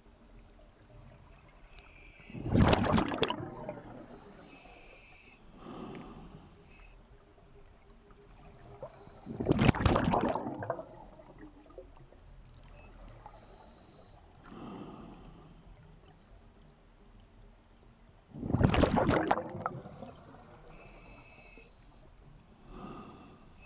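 Scuba diver breathing underwater through a regulator. Three loud bubbling exhalations come about eight seconds apart, each followed a few seconds later by a quieter hiss of inhalation.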